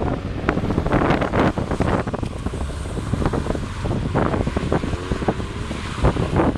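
Wind buffeting the microphone with a constant rumble and crackle, over a car engine running faintly in the background with a slight rise and fall in pitch.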